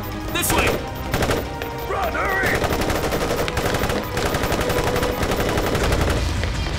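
Rapid automatic rifle fire, many shots a second, with men shouting over it near the start and about two seconds in.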